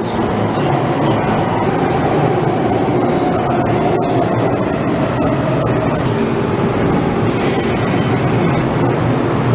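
JR East 185 series electric train departing and running past the platform close by, with a steady rumble of wheels and motors.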